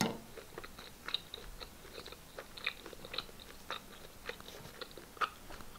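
Faint scattered small clicks and crinkles, about two a second, as a chocolate mochi donut is handled and a piece pulled off.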